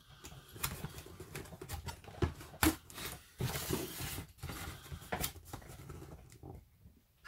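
Cardboard and plastic packaging being handled: scattered crinkles and light scrapes with a few sharper taps and clicks, the loudest a little over two and a half seconds in.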